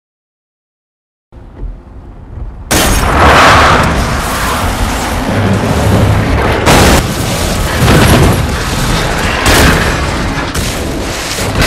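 Horror-film sound design: dead silence, then a low rumble, then a sudden loud boom about three seconds in that opens onto a dense, loud roar with further heavy hits every second or two, mixed with music.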